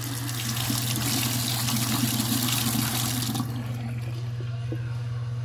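Bathroom sink faucet running, its stream splashing into the basin and down the open drain. The flow is turned off about three and a half seconds in, leaving only faint running and dripping water.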